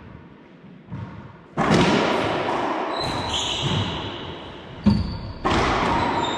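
Racquetball rally in an enclosed court. The ball is bounced lightly a couple of times before the serve, then hit hard about a second and a half in, setting off a loud ringing echo in the hard-walled court. More sharp ball strikes follow about five seconds in, with high sneaker squeaks on the hardwood floor.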